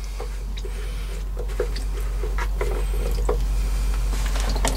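Cover of a boat's air-conditioning raw-water strainer being unscrewed and lifted off by hand: scattered small clicks and a few faint squeaks from the threads and housing, over a low steady hum.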